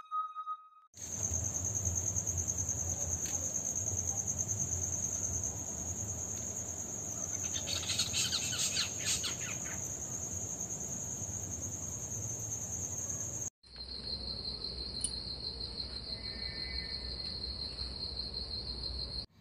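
Crickets singing: a steady, high-pitched continuous trill. About 13 seconds in it cuts off and is replaced by a lower-pitched steady trill.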